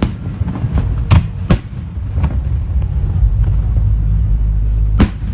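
Aerial fireworks bursting: sharp bangs about a second in and again near the end, over a continuous low rumble. The rumble carries on through a lull of about two and a half seconds with no bangs.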